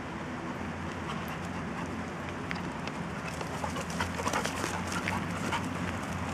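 A boxer and a black labrador play-fighting on leaf-covered ground: quick scuffling and rustling, busier from about halfway in, over steady background noise.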